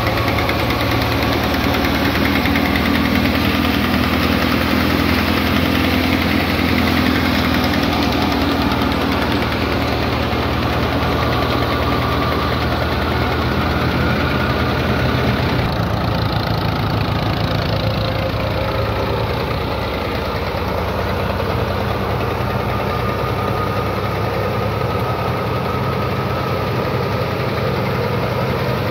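Fiat 480 tractor's three-cylinder diesel engine running steadily, driving a threshing machine through its PTO shaft, with the thresher running at the same time.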